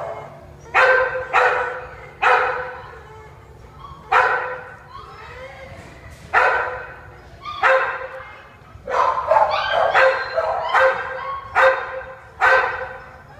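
Dog barking in a kennel, about fifteen sharp barks at irregular intervals with a quick run of them about two-thirds of the way through, each trailing off in an echo off the hard kennel walls.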